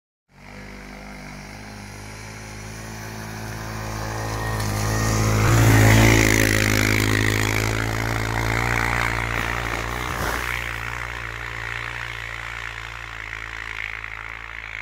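Honda 250 ATV's single-cylinder engine running steadily as the quad drives past, growing louder to a peak as it passes close about six seconds in, then fading as it pulls away.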